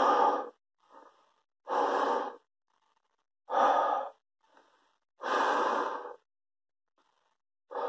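A man blowing out hard through the hand cupped over his mouth, five forceful breaths about every two seconds, with faint inhalations between.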